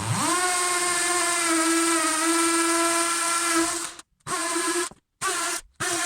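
Cordless DeWalt drill on hammer setting, boring into plaster and brick with an 8 mm masonry bit. The motor whines up to speed and runs steadily for about four seconds, then stops. It follows with three short bursts.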